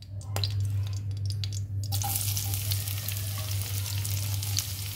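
Sliced onions going into hot oil in a non-stick pan: a knock near the start, then sizzling and crackling that sets in suddenly about two seconds in, over a low steady hum.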